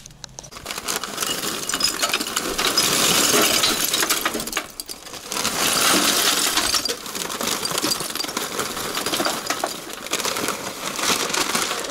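Charcoal pouring from a paper sack into a metal barbecue grill: a dense clinking clatter of lumps tumbling onto the steel firebox and onto each other, in two long pours with a short break about five seconds in.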